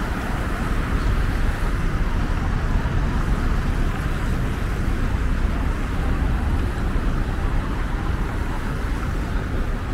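Steady road traffic noise on a busy city street, a continuous low rumble with no single event standing out.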